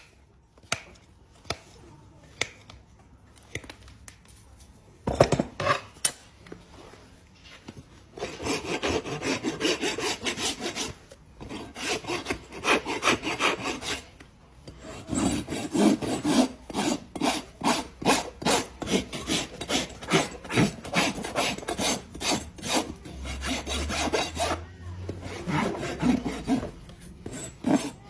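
Farrier's rasp filing a horse's hoof wall in quick back-and-forth scraping strokes that start about a third of the way in, with short pauses between runs. Before the rasping come a few sharp isolated clicks.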